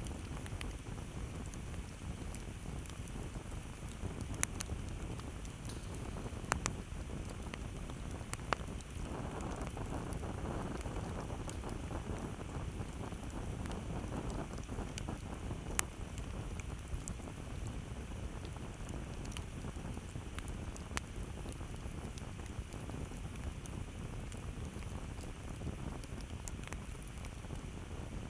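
Campfire burning with a steady low rush of flames and scattered crackles, a few of them sharp, loud pops. A hissing rush swells for several seconds about a third of the way in.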